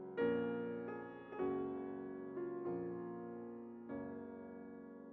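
Soft background piano music, slow notes and chords that sound and fade away.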